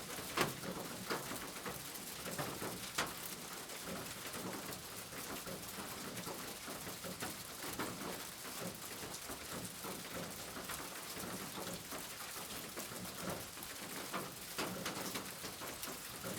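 Steady rain falling, an even hiss with scattered louder drops striking close by.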